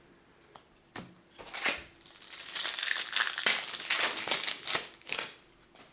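Hockey card pack wrapper crinkling and rustling as the pack is opened and the cards are pulled out, from about a second in until near the end.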